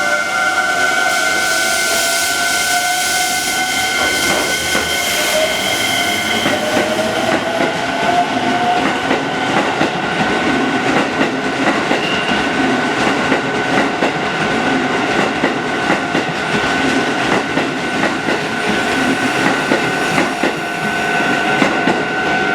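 Keisei electric commuter train pulling out of a station. Its traction motor whine rises steadily in pitch as it accelerates over the first several seconds, then the wheels clatter over rail joints and points as it passes, over a steady high tone.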